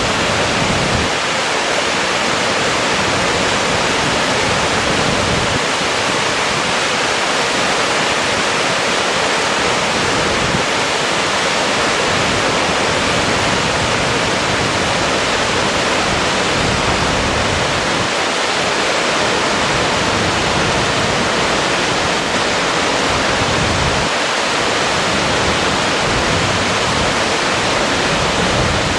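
Small waterfall pouring down a rock chute into a plunge pool, heard close to the falling water: a steady, loud rush of water.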